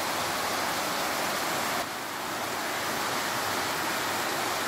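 Muddy floodwater of a swollen river rushing and churning past a rocky bank in a steady roar of water noise.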